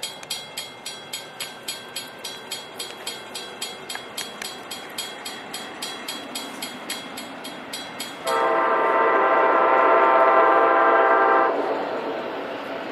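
Grade-crossing warning bell dinging steadily, about two to three strikes a second, as a train approaches; about eight seconds in, the locomotive's horn sounds one long chord for about three seconds, followed by the rumble of the train nearing the crossing.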